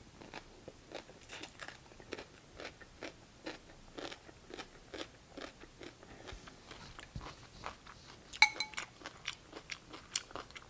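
Close-up chewing of crunchy cucumber from cold cucumber soup: a steady run of crunches, about two to three a second. About eight seconds in comes a sharp, ringing clink, the loudest sound.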